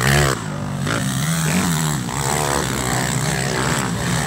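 Racing quad bike (ATV) engine revving, its pitch rising and falling as the throttle is opened and closed on a steep downhill. The note drops back briefly about a third of a second in.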